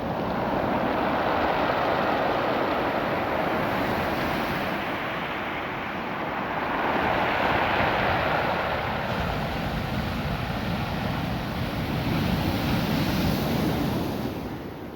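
Ocean waves washing up and drawing back over a beach of small, smooth, rounded cobble stones, the stones adding a rushing, rattling hiss to the surf. The wash swells three times.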